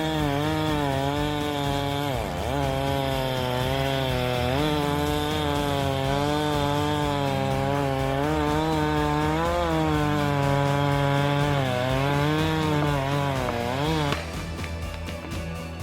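Two-stroke chainsaw running at high revs while cutting wood, its engine pitch wavering under load and dropping sharply about two seconds in and again just before it cuts off, about fourteen seconds in.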